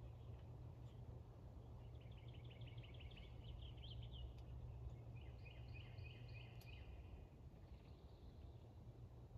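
Faint wild songbird song: a rapid trill of repeated notes about two seconds in, then a second phrase of repeated notes a few seconds later, over a low steady hum.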